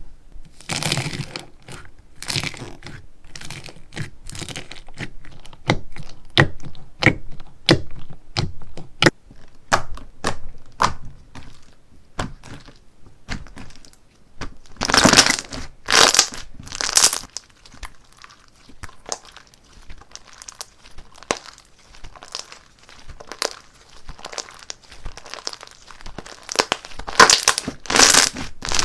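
Slime being handled by hand, giving many sharp crackles and pops, several a second, with a few longer, louder crunching bursts about halfway through and again near the end.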